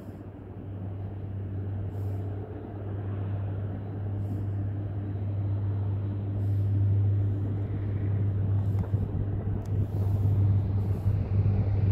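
A steady low mechanical hum with a few faint overtones, getting louder over the first half and then holding.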